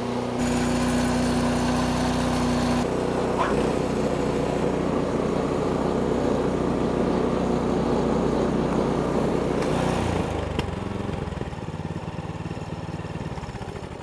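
Briggs & Stratton 950 Snow Series 208cc single-cylinder engine of a new Powersmart two-stage snowblower, running steadily just after a cold start on the first pull. Its note changes about half a second in and again near three seconds in, and it grows quieter over the last few seconds.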